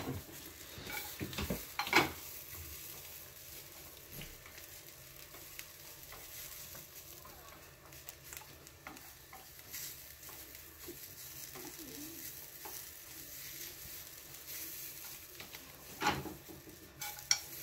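Carrot kinpira sizzling in a frying pan as it is stirred, with a steady hiss and a few sharp clacks of the utensil against the pan, the loudest about two seconds in and another near the end.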